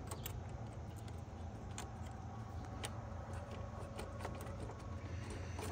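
Scattered light clicks and ticks of a flathead screwdriver turning a worm-gear hose clamp loose, and of the coolant overflow hose being worked off the radiator filler neck, over a steady low hum.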